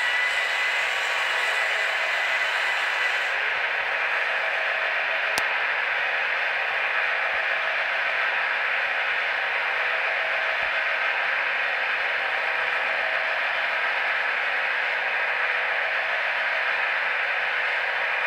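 Steady hiss throughout. A thin electric-motor whine from a radio-controlled truck fades out in the first few seconds as it drives away. One sharp click comes about five seconds in.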